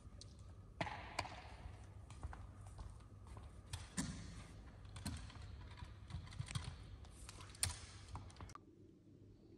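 Scattered light clicks and taps over a low steady hum, cutting off suddenly near the end.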